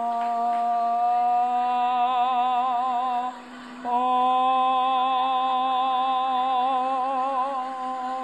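Blendtec blender running steadily while a man sings along, holding long notes at the blender's own pitch with a wavering vibrato. His voice breaks off for about half a second a little past three seconds in, then carries on over the motor.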